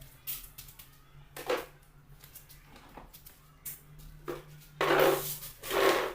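Small hard objects clicking and clattering, with two louder scraping rattles near the end, like tools or parts being handled on a workbench.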